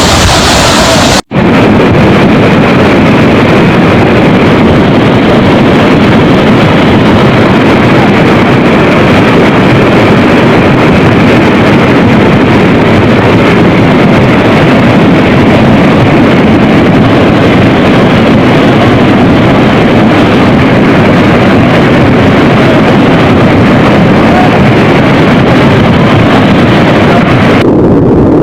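Floodwater of the Ourika river rushing in spate: a loud, steady torrent noise that breaks off for an instant about a second in.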